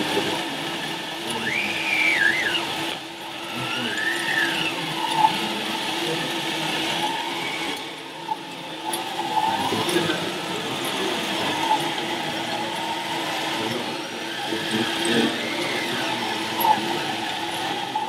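Electric motors of a radio-controlled scale Liebherr 634 crawler loader whining, rising and falling in pitch several times as it drives and works its bucket in soil.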